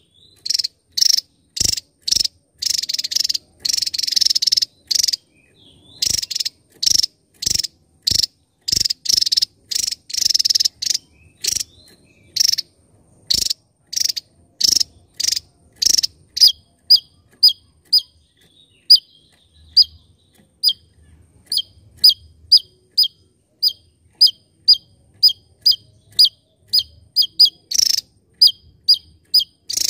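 Javan tesia calling in a fast, repeated series: first a string of harsh, buzzy notes, then from about halfway short, sharp notes that each drop in pitch, about two a second.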